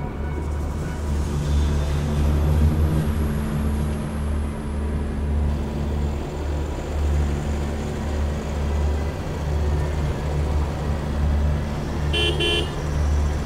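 Car driving, a steady low engine and road rumble inside the cabin. About twelve seconds in a car horn gives a brief toot.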